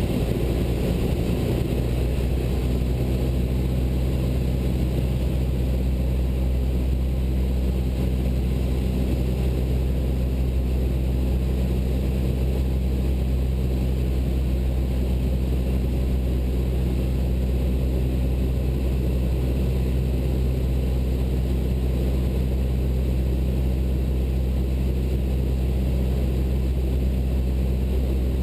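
Cessna 172 Skyhawk's piston engine and propeller running steadily in flight, an even low drone that does not change.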